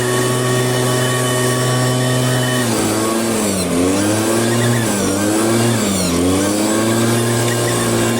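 Small two-stroke engine of a handheld gasoline garden tool running at high throttle. Around the middle its pitch drops and climbs back three times as the throttle is eased off and reopened, then it holds steady at full speed.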